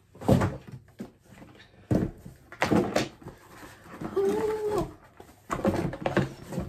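Crinkling and rustling of plastic packaging, handled in several short bursts, with a short pitched, voice-like sound about four seconds in.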